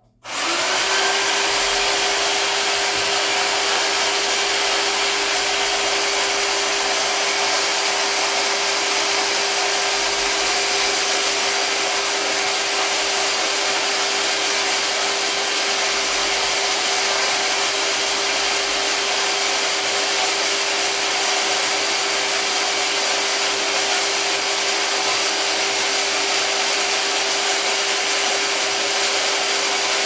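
Corded electric hedge trimmer starting up and then running steadily at full speed, an even motor hum and whir with little change in load.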